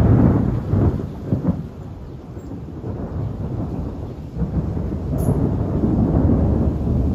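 Thunder: a sudden loud clap with crackling at the start that rumbles away over the next two seconds, then a second, longer rolling rumble building from a little past halfway.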